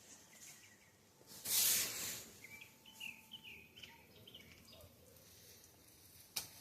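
Birds chirping, with a short loud hiss about a second and a half in.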